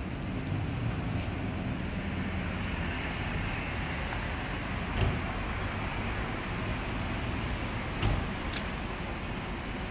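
Steady low rumble of background noise, with two brief knocks about five and eight seconds in.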